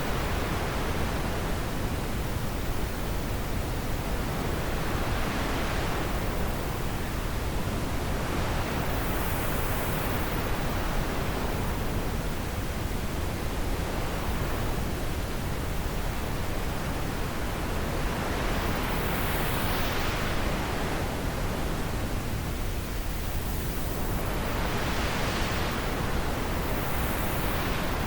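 Steady rushing wind with slow gusts that swell and fade in the higher hiss about every five seconds.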